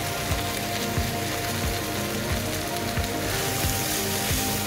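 Food frying in a pan: a steady, light sizzle of masala and freshly added diced vegetables, under background music with a steady beat.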